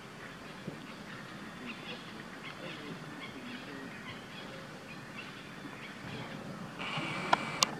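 Outdoor forest ambience with faint scattered chirps. A steady high buzz comes in near the end, and two sharp clicks follow just before the end.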